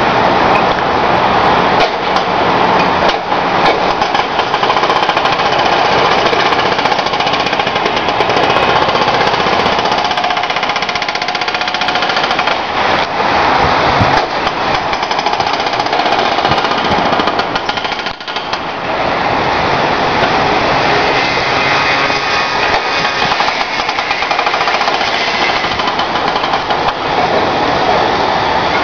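Hydraulic breaker on a Komatsu backhoe loader's arm hammering asphalt: loud, rapid, continuous pounding that briefly lets up about two-thirds of the way through.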